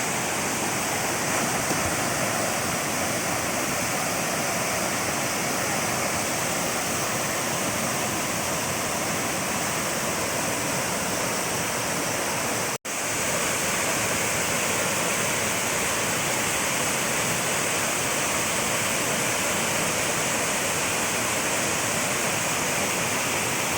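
Waterfall: a steady rush of falling water, with a momentary cut-out about halfway through.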